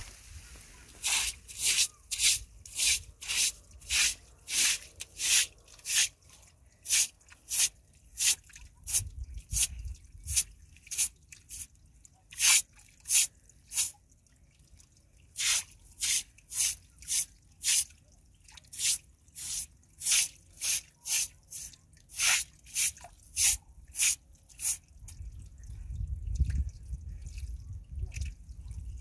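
Short straw hand broom sweeping a stone-paved floor: quick, even brushing strokes, about two a second, which stop a few seconds before the end. A low rumble follows near the end.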